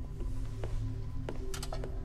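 Low droning background score with a thin steady high tone, and a few short, soft clicks scattered through its second half.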